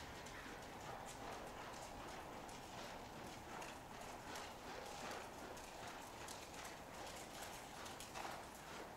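Faint, rhythmic hoofbeats of a ridden horse moving over indoor-arena footing.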